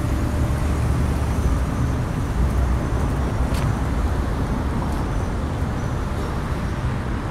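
Steady noise of congested city street traffic: a continuous low rumble of engines and tyres.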